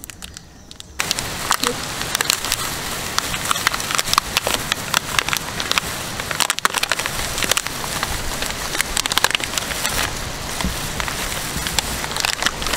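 Cadbury Dairy Milk chocolate-bar wrappers, foil and purple outer wrapper, crinkling and tearing as the bars are unwrapped by a hand in a plastic glove: a dense crackle that starts about a second in and keeps on.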